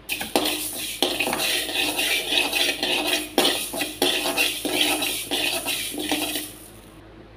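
A metal spatula scrapes and stirs fenugreek seeds being dry-roasted in a wide flat metal pan, with the seeds rattling across the metal in repeated strokes. The stirring stops about six and a half seconds in.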